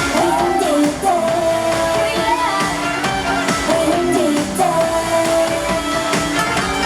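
K-pop song performed by a girl group: female voices singing a melody over loud, steady pop backing music.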